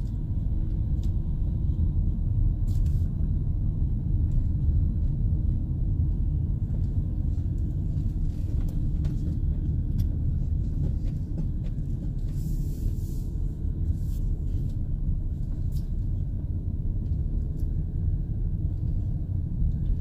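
Steady low rumble of engine and road noise inside a moving van's cabin.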